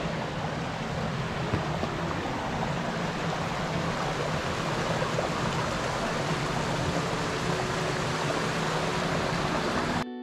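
Small desert creek running over rocks, a steady rushing sound.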